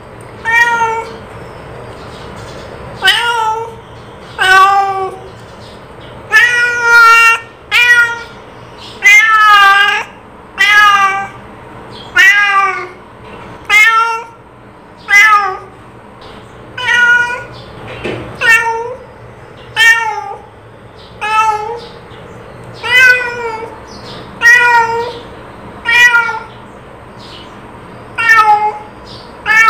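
A cat meowing over and over: about twenty separate calls, roughly one every second or so, each bending in pitch, with short gaps between them.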